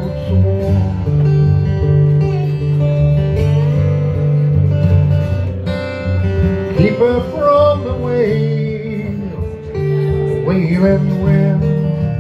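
Acoustic lap slide guitar played instrumentally: plucked notes over a steady bass line, with sliding pitch glides about seven and ten seconds in.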